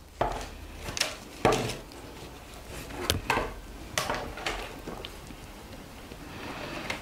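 Willow (sally) rods rustling and knocking as they are woven over and under the ribs of a potato basket frame, in irregular clicks and scrapes.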